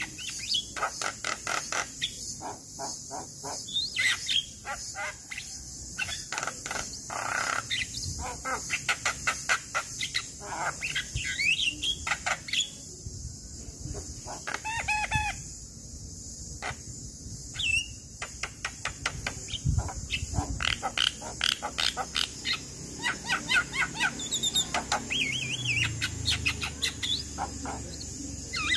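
Male Javan myna singing: a long, varied run of rapid clicks, harsh chatter and short whistled notes, with a steady high hiss behind it.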